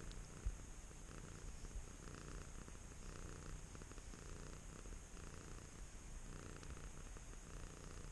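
Domestic cat purring in a steady, pulsing rhythm, content as its head is stroked and scratched; a single soft bump about half a second in.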